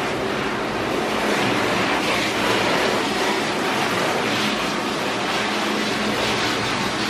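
Handheld shower sprayer running, water spraying steadily onto a wet German Shepherd's thick coat and splashing in a stainless steel grooming tub.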